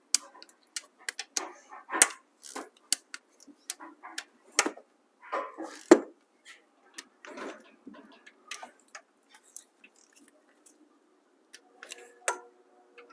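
Ratchet clicks and metal clinks of a click-type torque wrench and socket tightening the 10 mm cylinder-head bolts of a HEMI 5.7 L V8 to 15 ft-lb. Irregular short clicks and knocks, a few of them louder.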